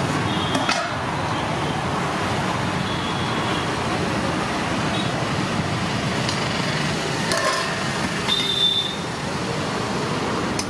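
Steady roadside traffic noise, with a few sharp metallic clinks of steel serving spoons and containers, some with a short ring.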